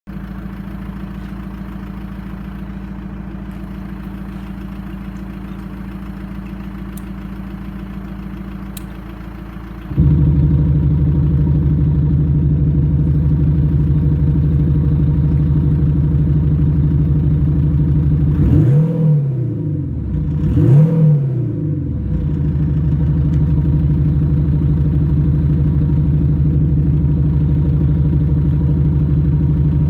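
Synthesised engine sound from an aftermarket active sound generator module, playing Audi engine-note profiles. A steady idle drone jumps to a clearly louder setting about ten seconds in, with two quick rev blips rising and falling about two-thirds of the way through.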